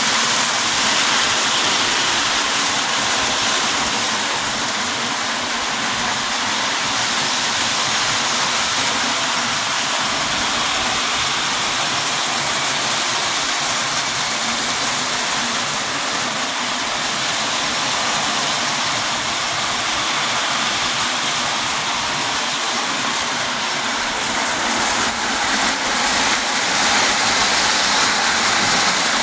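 Lionel post-war O-gauge steam locomotives and tinplate cars running on three-rail track: a steady whirring rattle of electric motors and metal wheels on tinplate rail, with a thin high whine over it.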